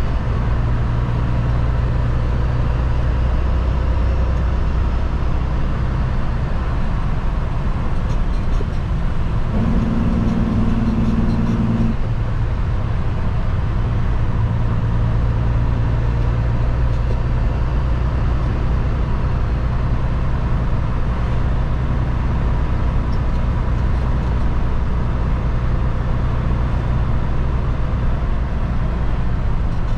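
Kenworth W900L semi truck's diesel engine running steadily while driving, heard inside the cab over road noise. About ten seconds in, a higher engine note comes in for a couple of seconds, then drops away.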